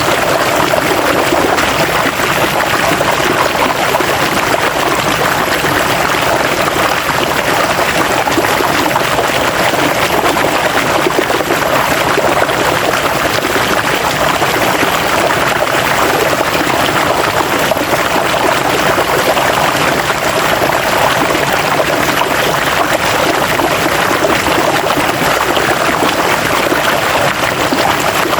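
River water rushing and splashing over rocks, a steady, even flow.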